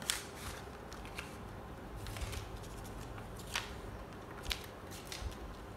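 Small cardboard box and paper instruction sheet being handled and pulled out: rustling with a few sharp crackles of card and paper, one near the start and several in the second half.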